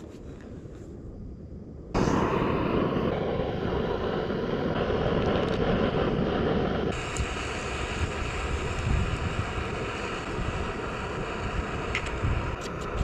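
Canister gas backpacking stove burner running with a steady hiss that starts abruptly about two seconds in. Near the end come a quick run of light clicks.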